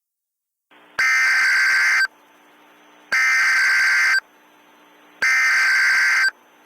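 Three Emergency Alert System SAME header bursts, each a harsh buzzing digital data tone about a second long, with about a second between them, over a faint hiss. This is the coded header that announces a new emergency alert message.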